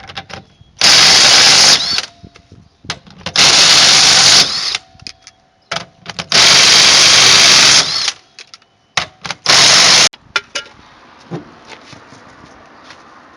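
A handheld power tool run in four short bursts, spinning off the rear wheel's lug nuts, with small metal clicks between the bursts.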